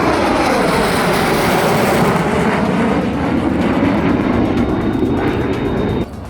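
Sukhoi Su-30 fighter's twin jet engines passing by loudly, the pitch of the jet noise falling steadily as it goes past. The sound cuts off abruptly about six seconds in.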